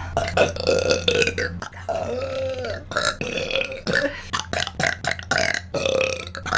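A run of burps, one after another: a long drawn-out one near the start, one that rises and falls in pitch about two seconds in, then several shorter ones.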